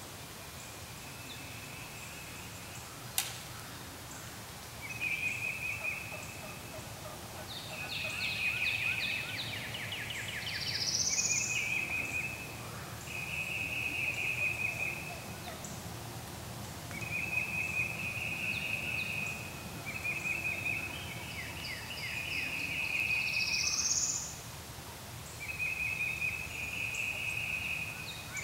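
Birds calling in the woods: a string of trilled phrases, some with a rapid rattle, and two quick rising calls about eleven and twenty-three seconds in. One sharp click comes about three seconds in.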